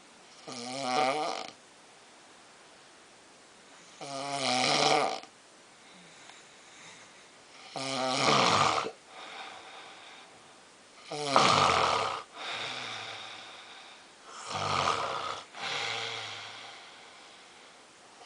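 A person snoring very loudly in sleep: five heavy rasping snores on the in-breath, about one every three and a half seconds, with quieter breaths out between them.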